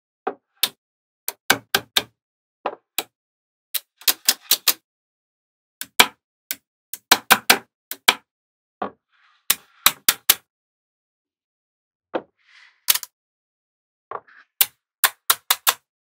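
Magnetic balls clicking sharply against each other as they are snapped into place, about two dozen clicks at uneven spacing, some in quick runs of three or four.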